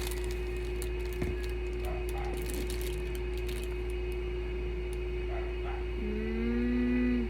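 Light crinkling and clicking of packaging being handled over a steady electrical hum, with a person's voice sounding briefly about six seconds in.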